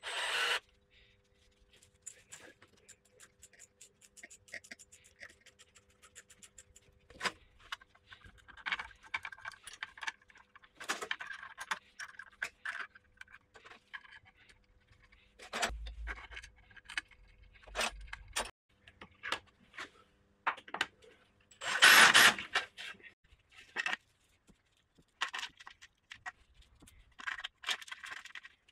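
Workshop handling noise on a milling machine table: a brief run of a cordless driver at the start, then scattered clicks, taps and scrapes of an Allen key, metal brackets and an aluminium scale being fitted by hand. A louder noisy burst of about a second and a half comes a little past two-thirds of the way through.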